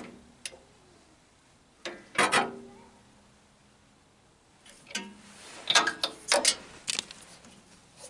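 Metal clicks of a spark plug socket wrench, in several short bursts, as a new spark plug is screwed into a Honda GX small engine.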